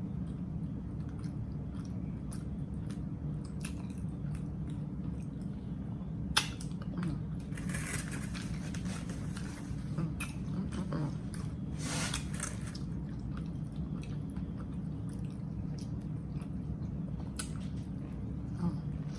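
Close-up chewing and biting of a large chopped grinder sandwich, with scattered sharp mouth clicks and a louder click about six seconds in. Two stretches of crackly rustling, one around the middle and a shorter one a few seconds later, over a steady low hum.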